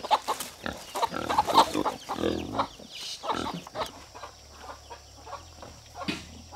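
Chickens clucking and calling: a busy run of short calls that thins out after about four seconds.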